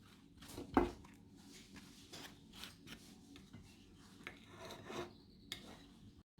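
Irregular soft scraping and rubbing strokes of cheese being spread over halved eggplants, with one louder knock a little under a second in.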